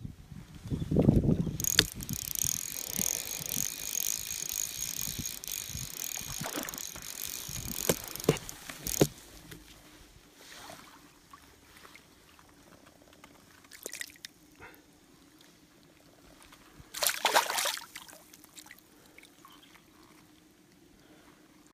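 Lake water splashing and sloshing against a camera as it dips in and out at the surface. There is a heavy thump about a second in and a hissing, bubbling stretch to about nine seconds. After that it turns to quieter, muffled underwater sound, broken by a few more splashes, the loudest one near the end.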